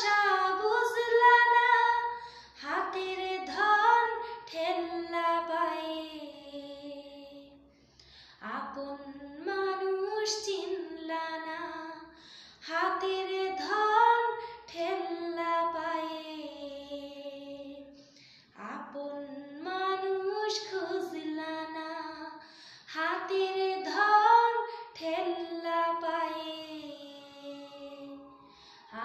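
A woman singing a Bengali song solo and unaccompanied, with no instruments. She sings in long phrases with short breaks about every ten seconds.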